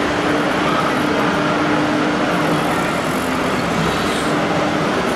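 Steady hum of a radio-controlled model machine's motor, holding one constant low tone over a dense background din.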